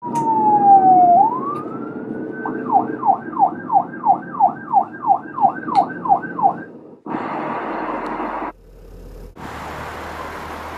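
Emergency vehicle siren over a low rumble. It gives one slow falling-then-rising wail, then a fast yelp of about three sweeps a second, and stops about seven seconds in. Street traffic noise follows.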